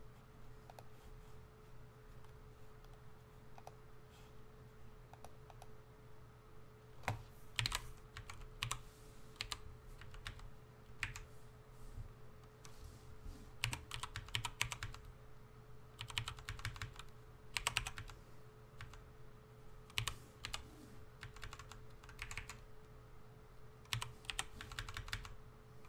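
Computer keyboard typing: a few scattered keystrokes at first, then quick bursts of keystrokes from about seven seconds in, over a faint steady hum.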